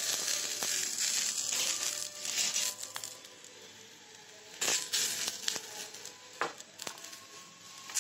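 Curry leaves and spices sizzling and crackling in hot oil in a small kadai during a tempering. The sizzle is loudest for the first three seconds, then dies down. A few sharp clicks of a steel spoon against the pan follow in the second half.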